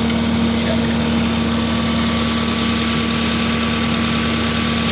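Bulldozer's diesel engine idling steadily.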